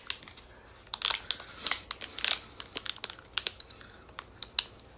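Plastic blind-pack packaging crinkling in quick irregular crackles as it is handled and opened.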